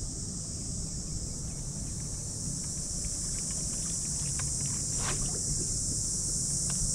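Steady high-pitched insect chorus over a low wind rumble on the microphone, with a few faint clicks about five seconds in.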